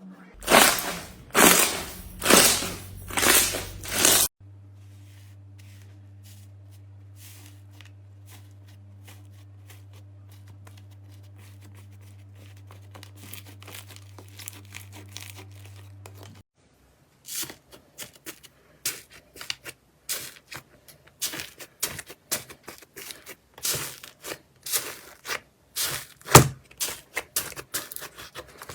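Slime being handled by hand. It opens with about five loud tearing, stretching swells, then a steady low hum with faint ticks for several seconds. About seventeen seconds in comes a run of sharp, irregular crackles and pops as the slime is pressed and poked.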